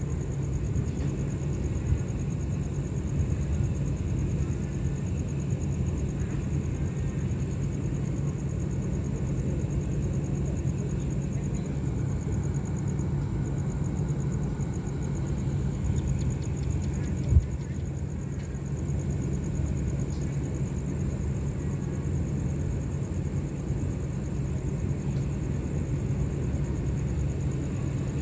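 Steady low diesel rumble and hum of a passenger train standing at the platform with its engines idling, under a steady high-pitched whine. A single short knock sounds about seventeen seconds in.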